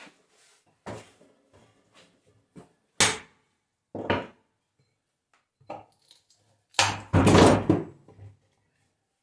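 The halves of a hand-sawn log knocking and shifting on a wooden workbench: a series of separate wooden knocks, then about seven seconds in a louder, heavier scraping thud lasting about a second as one half is moved.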